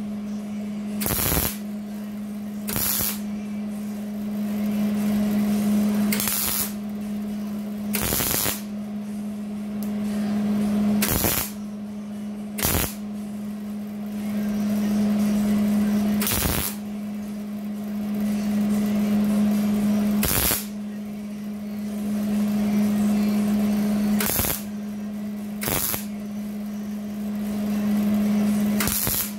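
MIG welder laying short stitch welds on thin sheet-metal patch panel, the arc crackling in bursts of a few seconds with brief pauses between them and sharp pops about a dozen times. A steady hum runs under it throughout.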